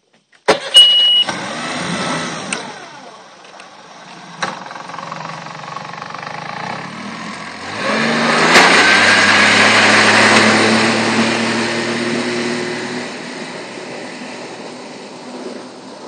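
Mercury 30 hp outboard motor starting with a short beep, running at low speed, then opened up to full throttle about 8 seconds in with a rising pitch and a much louder note, before fading as the boat pulls away.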